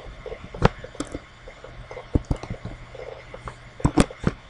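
Computer keyboard keys and mouse buttons clicking as form fields are filled in: a handful of separate sharp clicks, the loudest a pair about four seconds in, over a faint low hum.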